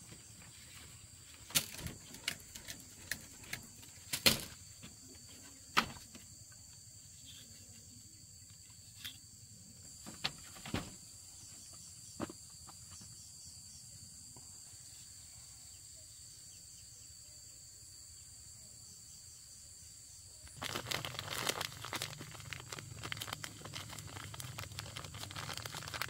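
Insects keep up a steady high buzz. Over it come a string of sharp clicks and snaps in the first half. About twenty seconds in, a dense rustling and crunching of undergrowth starts and keeps going.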